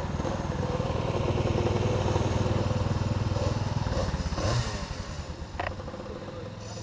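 Two-stroke racing kart engine running near idle, its rapid firing pulses steady and loud, then dropping to a quieter level about four and a half seconds in.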